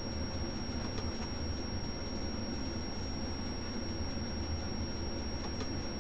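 Steady room tone: a low hum and hiss with a thin, high-pitched whine, and a couple of faint clicks, one about a second in and one near the end.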